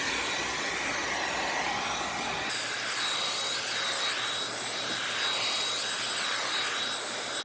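Handheld hair dryer running on its high setting, a steady blowing rush with a faint whine that steps higher about two and a half seconds in. It is switched off right at the end.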